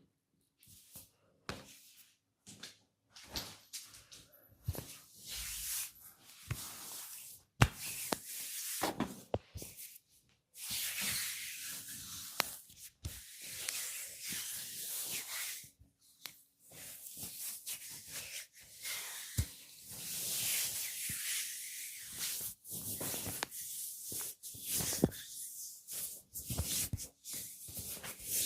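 Hands rubbing and kneading oiled skin and hair in a massage: stretches of hissing rubbing strokes, each a second to several seconds long, broken by short sharp clicks. One sharp click about eight seconds in is the loudest.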